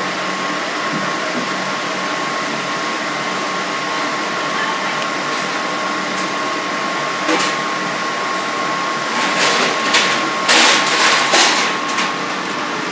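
Foundry crucible furnace running, with a steady rush of blown air and a thin high whine. Near the end a few sharp metallic clinks and clatters as metal pieces are handled.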